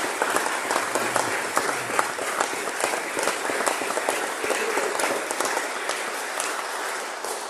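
Congregation applauding, a dense steady clapping that eases slightly and dies away near the end.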